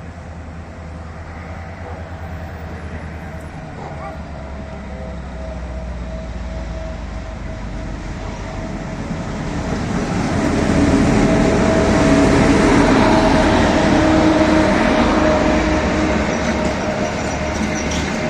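Passenger train hauled by a GM/EMD G26CW-2 diesel locomotive passing, its engine and wheels on the rails growing louder to their loudest about eleven seconds in, then easing slightly.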